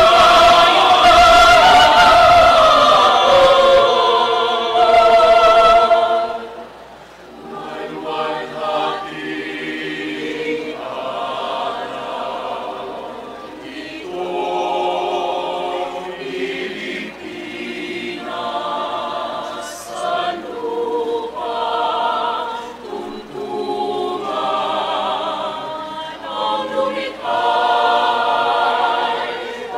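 Mixed choir singing in parts. A loud, full passage breaks off about six seconds in, and the choir carries on more softly.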